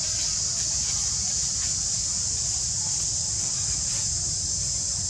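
Steady, high-pitched drone of an insect chorus, cicadas singing in the trees, with a low rumble underneath.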